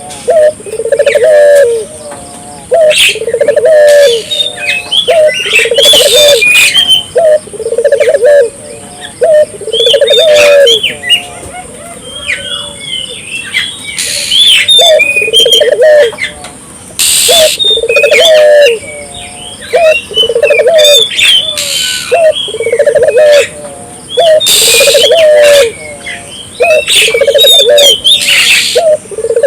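Ringneck dove (burung puter) cooing over and over, about one coo phrase a second with short pauses, with smaller birds chirping higher up.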